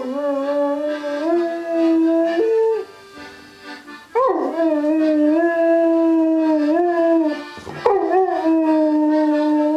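Dog howling along to a melodeon: three long howls, each held on one pitch with small steps up and down. The second starts about four seconds in and the third about eight seconds in.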